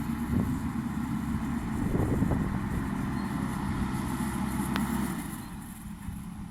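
JCB backhoe loader's diesel engine running with a steady rumble, with a couple of clunks about two seconds in; the engine eases off near the end.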